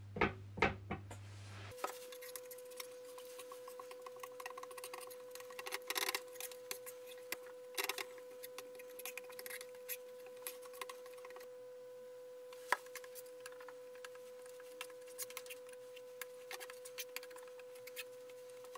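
Fingers spreading wood glue over a wooden board: soft, sticky rubbing with many small irregular clicks and smacks, after a couple of sharper sounds from the glue bottle at the start. A steady high hum runs behind it from about two seconds in, and one sharp click stands out about two-thirds of the way through.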